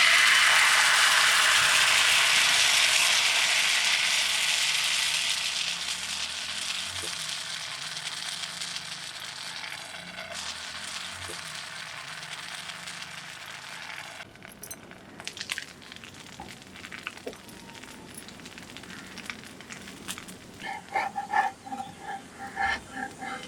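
Food sizzling in a hot pan: a loud hiss that starts all at once and slowly dies down. Near the end come a few short, light metallic clinks.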